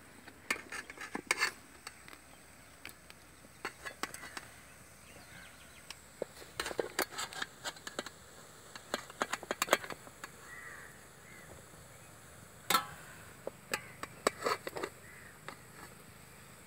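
Steel slotted ladle clinking and scraping against a steel steamer pot and plate in scattered sharp clicks as steamed dumplings are lifted out, done through.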